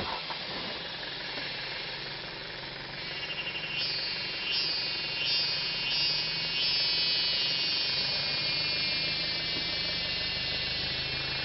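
Forest ambience: a steady hiss over a low hum, with a sharp click at the very start. About four seconds in, a high-pitched insect buzz starts in short pulses under a second apart, then holds steady.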